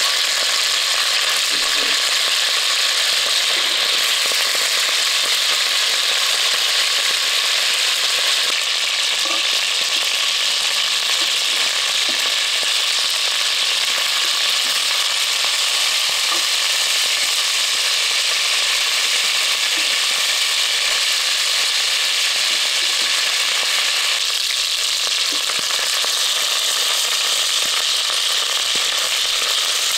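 Cubes of beef searing in a Dutch oven: a steady, even frying sizzle. The meat is fried a small batch at a time so it browns rather than stews.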